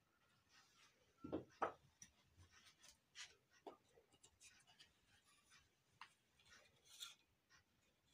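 Faint handling sounds of a turned wooden candle stand being rubbed and turned over in the hands, with two light knocks about a second and a half in and scattered soft taps after.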